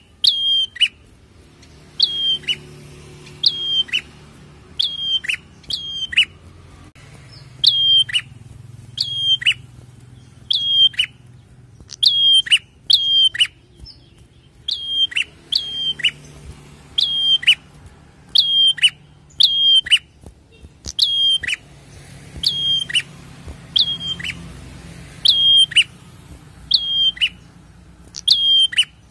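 Caged prenjak, a rufous-headed tailorbird, calling over and over with sharp, high chip notes that drop steeply in pitch, mostly in quick pairs about one to two a second, with a couple of short pauses.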